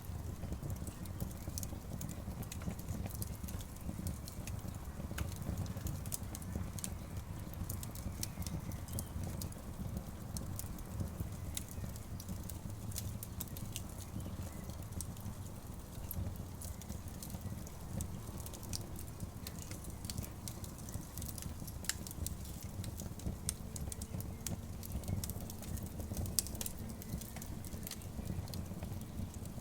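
Wood campfire burning: frequent small crackles and sharp pops scattered irregularly over a steady low rumble.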